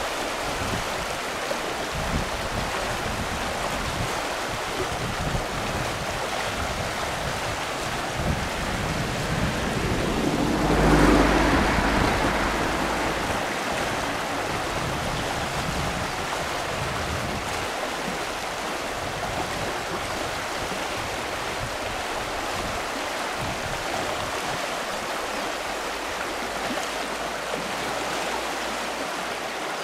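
Shallow mountain river rushing over a stony bed, a steady, even rush of water. About eleven seconds in, a louder, deeper sound swells up and fades away over two or three seconds.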